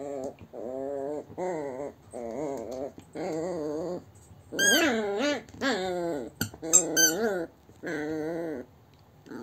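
Yorkshire terrier growling in play: a string of wavering growls about one a second, rising to higher, louder growls around the middle, with a few sharp clicks.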